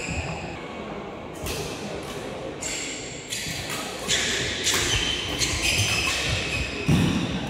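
Badminton rally on an indoor wooden court: rackets striking the shuttlecock with sharp pops about a second apart, and players' shoes shuffling and squeaking on the floor, all echoing in the hall. A heavier thud comes near the end.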